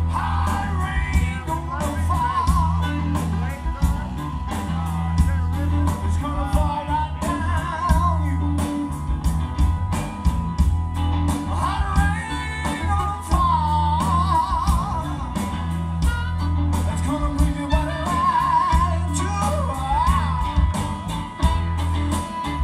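Live blues band playing with electric guitar, bass and drums over a steady beat, with a lead voice singing in phrases that come and go.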